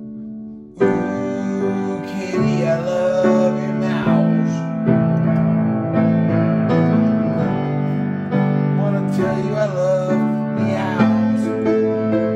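Kohler & Campbell grand piano playing sustained chords, starting about a second in, with a voice singing along at times.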